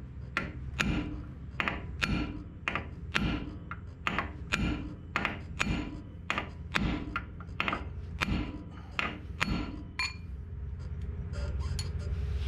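Hammer blows driving a new steel freeze plug into its seat in a Ford N-series tractor's cast-iron engine block, punched in the middle to flatten and expand it. About two strikes a second, each with a short metallic ring; the blows stop about ten seconds in.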